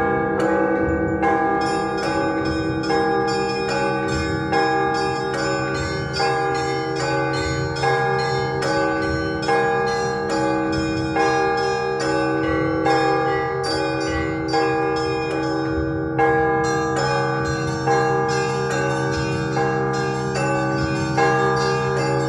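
Russian Orthodox festive peal (prazdnichny zvon): a set of church bells struck in a fast, dense rhythm, about two strikes a second, the smaller bells chiming over the steady hum of the larger low bells ringing on.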